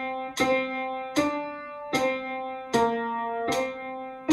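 The bass line of a choral hymn played one note at a time on an instrument, in steady three-beat time at about a note every 0.8 seconds, each note struck and left ringing.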